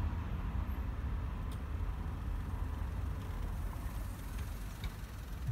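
Dutch automatic level-crossing half-barriers rising after the train has passed, over a steady low rumble. A single sharp click comes about one and a half seconds in, and a fainter tick near the end.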